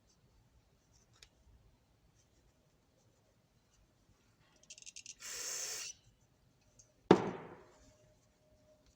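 A short burst of aerosol spray, a loud even hiss lasting under a second, about five seconds in, just after a brief rattle. About two seconds later a single sharp knock, the loudest sound, rings out briefly.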